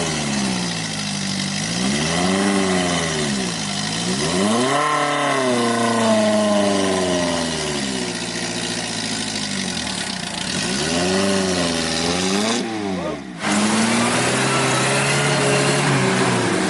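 Off-road jeep engine revving up and down again and again as it is driven through deep mud. It dips briefly near the end, then runs more steadily.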